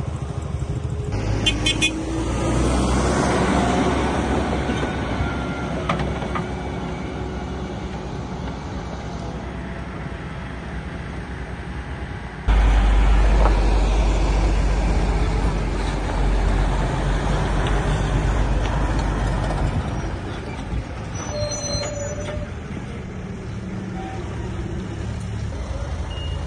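Heavy vehicle engines running at a fire scene, a steady low rumble that jumps louder about twelve seconds in, with a few brief tones and clicks over it.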